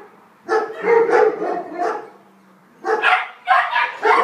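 Young German Shepherd puppy barking: a quick run of barks, a pause of about a second, then more barks in fast succession.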